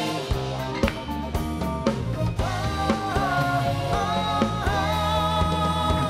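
Opening theme music for a TV talk show: a drum kit beat at about two beats a second over bass, with a held melody line coming in about two and a half seconds in.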